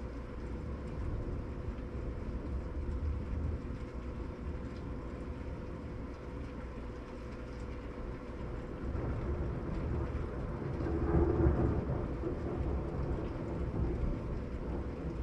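Rolling thunder from a thunderstorm: a low rumble that swells twice, the second and louder roll about nine to twelve seconds in, after a lightning flash.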